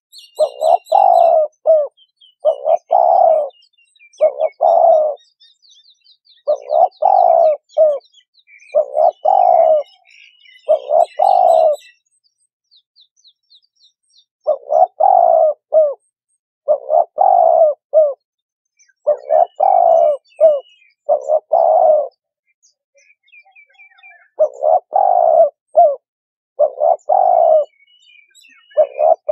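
Spotted dove cooing: short multi-note coo phrases about every two seconds, in runs broken by a couple of brief pauses, with faint chirps of small birds in the background.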